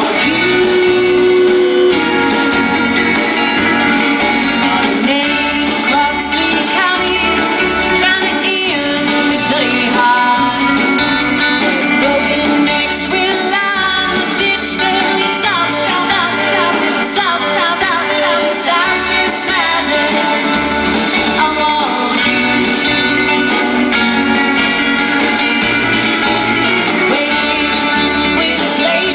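Live band performance: a woman singing lead over guitars and bass, playing steadily without a break.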